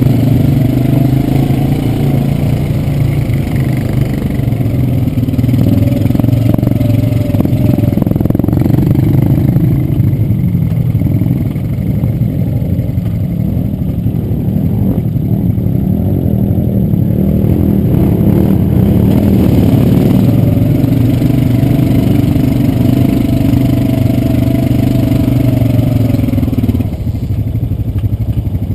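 ATV engine running under load on a muddy trail, its pitch rising and falling as the throttle is worked, easing off near the end.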